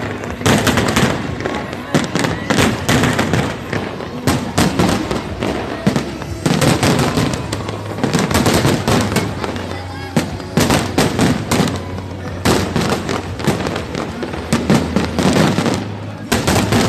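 Fireworks going off thick and fast: many overlapping bangs and rapid strings of crackling pops with no real pause, over a steady low hum.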